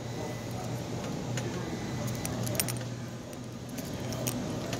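Wet laundry being handled and moved into a front-loading laundromat dryer: a few sharp clicks of handling over the steady hum of the running machines.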